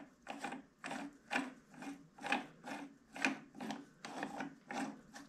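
A threaded metal nut being screwed on by hand in a 5C index head: a short rasping scrape of the threads with each turn of the fingers, about two a second.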